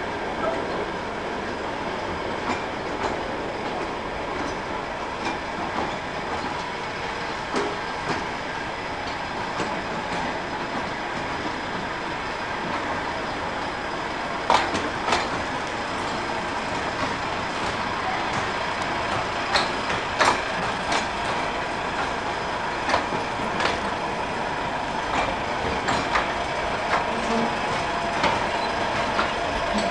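Ravenglass and Eskdale Railway 15-inch gauge coaches rolling slowly along the track: a steady rolling rumble with wheel clicks over rail joints and points. The sharpest clicks come in pairs about half a second apart, around the middle and again later.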